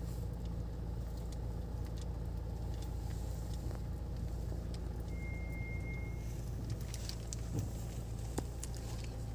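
Steady low hum of a car's engine and cabin, heard from inside the car as it idles and creeps in slow traffic. A single thin high tone lasts about a second, some five seconds in.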